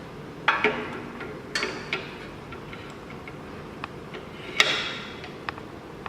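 Half a dozen sharp metal clicks and clacks as a tubular key clamp is set and fixed into an SEC-E9 automatic key cutting machine. The loudest clack comes a little past halfway.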